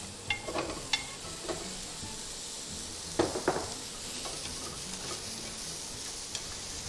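Pumpkin chunks sizzling as they are stir-fried in a pan with olive oil, mushrooms and curry powder. A spatula scrapes and knocks against the pan now and then, most sharply twice about three seconds in.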